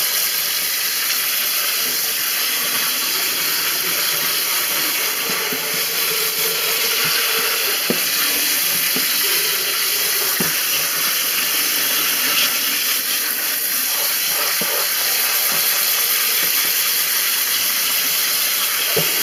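Kitchen sink sprayer running a steady stream of water onto soaked navy beans in a plastic colander as hands stir them through the spray, with a few light clicks.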